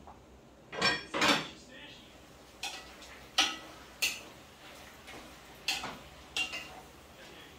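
Pan lid and cooking utensil clattering and clinking against a pan: a loud double clatter about a second in, then single sharp clinks roughly every second.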